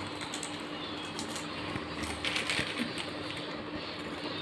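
Faint crunching and crinkling as two children chew crunchy corn snacks and handle foil snack packets, with a few louder crackles about two seconds in, over a steady low hum.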